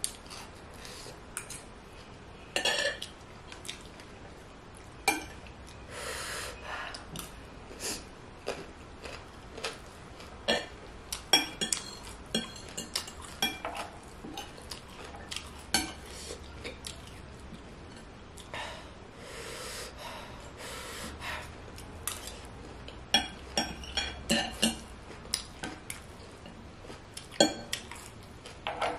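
Close-miked eating of noodles: a fork and spoon clink and scrape on a ceramic plate at irregular moments, with mouth sounds of chewing in between.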